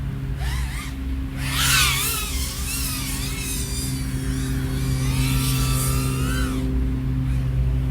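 iFlight AOS 3.5-inch FPV quadcopter's XING 1504 motors and propellers whining in flight, the pitch rising and falling with throttle changes; the whine drops away near the end.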